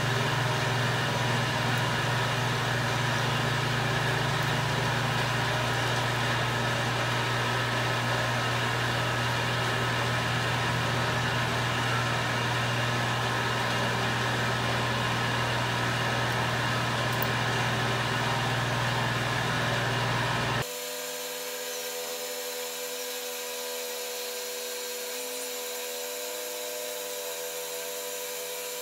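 A steady mechanical hum that cuts off abruptly about three quarters of the way through, giving way to a quieter, thinner steady hum.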